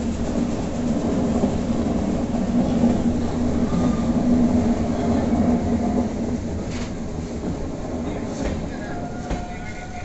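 Passenger train running through a rock tunnel: a loud, steady rumble of wheels and carriages on the rails, close in against the tunnel walls. It eases off about six seconds in as the train nears the tunnel mouth.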